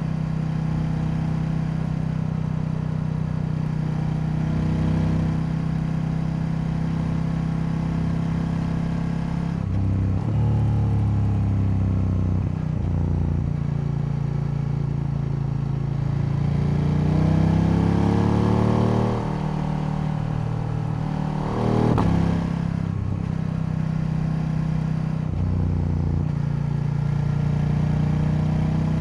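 KTM 890 Duke L parallel-twin motorcycle engine running under way, mostly at a steady pitch. About halfway through the revs climb for several seconds, then drop away, followed by a brief sharp rise in revs a couple of seconds later.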